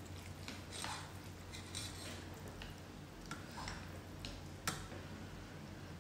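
Scattered light clicks and taps of chopsticks against bowls and a steel hot-pot as noodles are picked up, with one sharper click late on.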